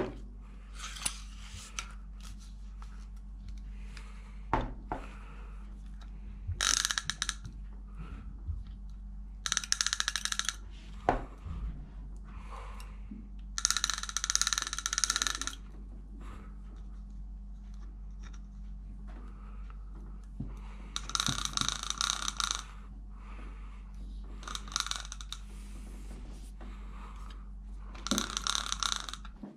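Vintage Shimano DUX spinning reel being cranked in short bursts of a second or two, its gears giving a rapid clicking whir, repeated about nine times with a few single clicks between.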